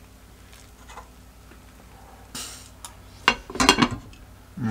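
Metal spoon and lid clinking and clattering against a cooking pot of rice pilaf, a quick cluster of knocks about three and a half seconds in, after a short hiss.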